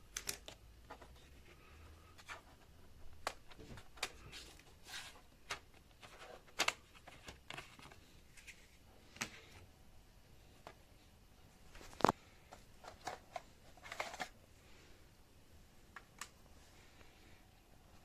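Scattered clicks, taps and rustles of an HP 255 G5 laptop's plastic case being handled and worked on by hand, with one sharper knock about twelve seconds in.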